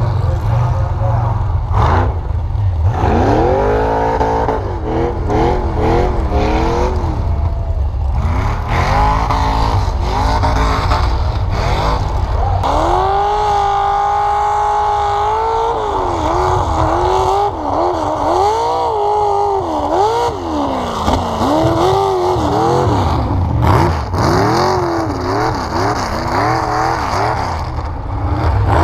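Vehicle engines revving hard on snow, their pitch climbing and dropping again and again over a steady low rumble. About halfway through, one engine holds a high steady rev for a couple of seconds.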